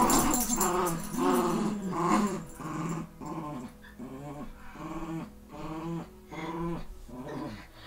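Dogs growling in play while tugging over a rope toy: a run of short growls about twice a second, louder in the first couple of seconds and then quieter.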